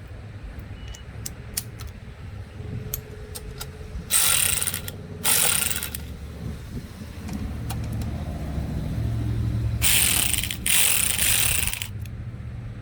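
A ratchet wrench running bolts into a motorcycle engine case cover: four bursts of rapid clicking in two pairs, with scattered small metal clicks between them.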